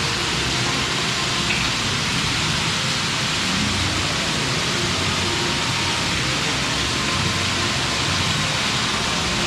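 Water sheeting down tiled water walls into a fountain pool: a steady, even rush of falling and splashing water.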